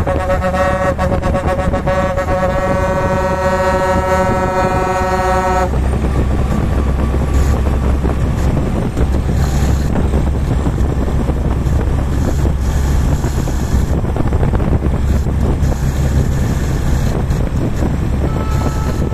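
A truck's air horn gives one long blast of several steady tones, about five and a half seconds, then cuts off. A steady low rumble of engine and road noise runs underneath and continues after the horn stops.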